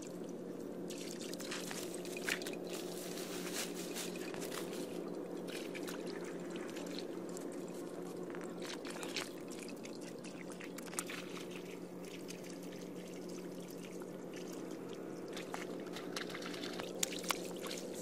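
Water pouring and trickling steadily through bamboo tubes into a mud hole, with a few short sharp clicks scattered through it.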